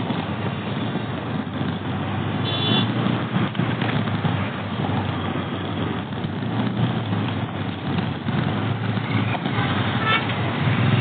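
Road traffic noise: a steady rumble of engines and tyres, with a short, high vehicle horn toot about two and a half seconds in and another faint brief tone near the end.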